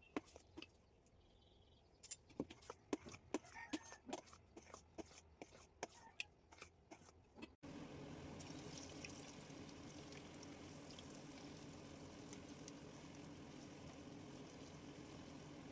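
Irregular sharp clicks and taps of a utensil against a bowl or pan, a few a second. After an abrupt cut about seven and a half seconds in comes a steady sizzling hiss, typical of pakoda batter frying in hot oil.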